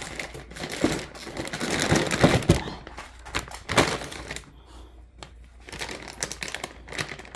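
Plastic packaging of dental chews crinkling as it is handled, with a run of sharp clicks and taps. The sound is busiest in the first few seconds and sparser afterwards.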